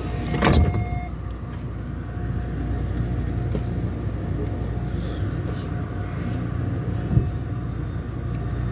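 Inside a Taipei Metro high-capacity steel-wheel train pulling out of a station: a door thump about half a second in, then a steady low rumble of the train moving off, with one knock near the end.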